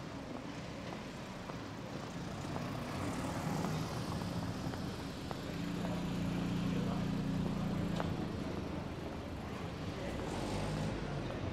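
A car drives slowly past on cobblestones. Its engine hum swells to its loudest about six to eight seconds in and then fades.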